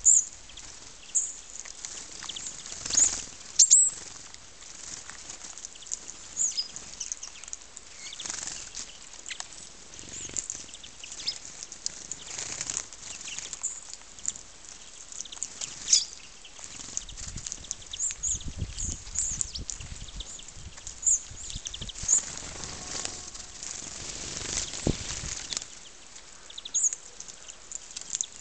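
Small birds calling with many short, high chirps, among scattered clicks and rustling.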